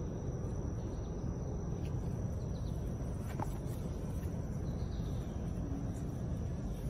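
Outdoor woodland ambience: a steady low rumble of background noise with a thin, steady high-pitched whine, and a few faint bird chirps.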